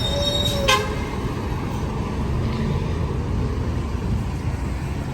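Street traffic running steadily, with a short vehicle horn toot under a second in.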